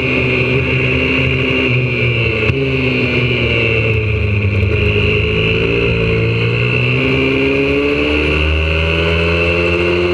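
Single-cylinder four-stroke engine of a YCF 125cc pit bike, heard up close from on board. The revs fall as the bike slows, then climb again as it accelerates, dipping and rising once more near the end. A short click comes about two and a half seconds in.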